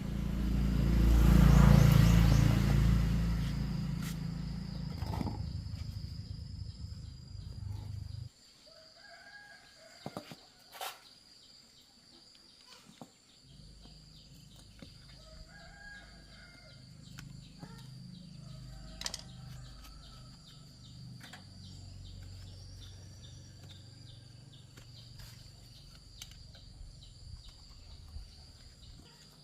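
A low engine rumble swells about two seconds in, fades, and cuts off suddenly about eight seconds in. Chickens then call and cluck several times over a fainter low hum.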